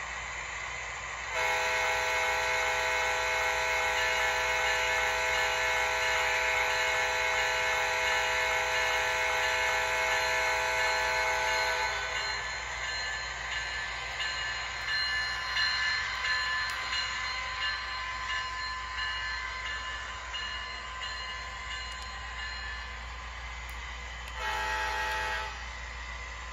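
Proto-Sound 3.0 sound system of an MTH HO-scale GE ES44AC model diesel locomotive sounding its multi-note air horn in one long blast of about ten seconds. A stretch of engine sound follows, rising and falling in level, and a second short horn blast comes near the end.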